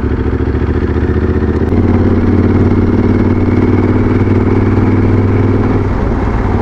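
Motorcycle engine heard from the rider's seat while riding, running steadily and getting louder about two seconds in.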